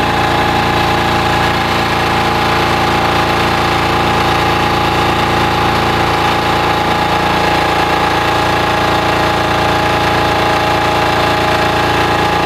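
Small 4.7 hp diesel engine of a spray rig running steadily, driving its Gorman-Rupp transfer pump.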